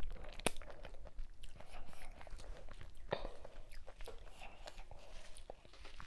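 Close-miked eating: chewing and wet mouth sounds of fufu with slimy ogbono soup and smoked chicken, with sharp clicks every so often, the loudest about half a second and three seconds in. A finger is sucked clean near the start.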